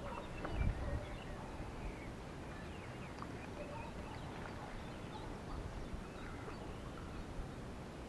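Faint bird chirps and short calls scattered through, over a steady low rumble, with a dull knock just over half a second in.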